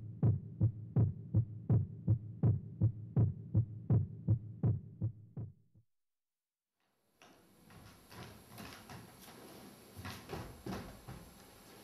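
A low, even thumping pulse, about three beats a second, in the manner of a heartbeat sound effect, stops abruptly after about six seconds. After a second of silence come faint rustling and light knocks of movement on a stage.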